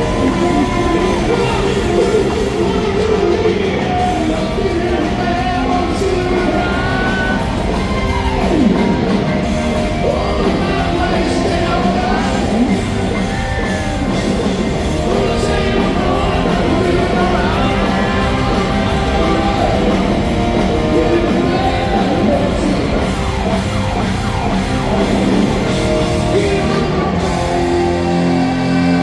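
Hard rock band playing live, with a singer and electric guitar over a full band, loud and continuous.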